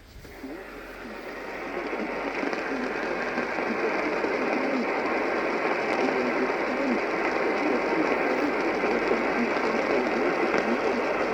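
AM radio static: a crackly hiss, limited to a narrow band like AM audio, that fades up over the first couple of seconds and then holds steady.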